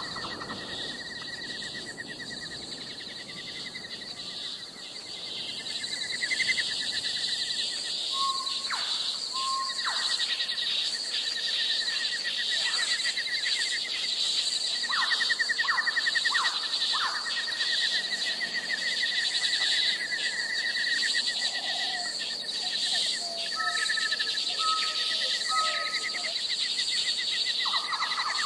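Insects trilling steadily in two high-pitched bands, with birds calling over them: a few short whistled notes, and a run of quick sharp calls around the middle.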